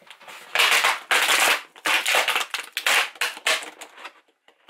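Thin embossed faux-tin plastic backsplash panel being pried and peeled off a wall, flexing and tearing away from its adhesive in several loud bursts, with a short lull near the end.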